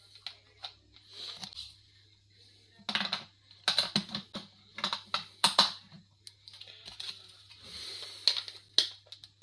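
Plastic clicks and rattles from a toy drone's remote controller being handled, as its battery compartment is checked and worked open. There are scattered single clicks, then quick clusters of clicks around the middle.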